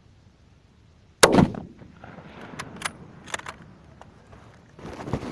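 A single rifle shot from a WW2 Russian sniper rifle, about a second in, a sharp loud crack that dies away quickly. It is followed by a few lighter clicks.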